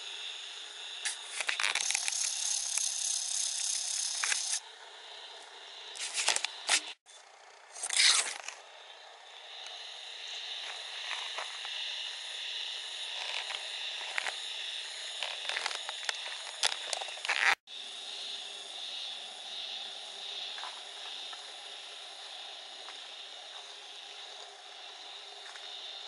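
Steady outdoor hiss with loud scraping and rattling handling noise in the first few seconds and again around six and eight seconds in. The sound cuts out for an instant twice.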